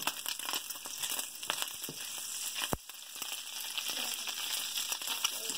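Bacon frying in a stainless steel skillet: a steady sizzle with many small crackles and pops. One soft thump about halfway through.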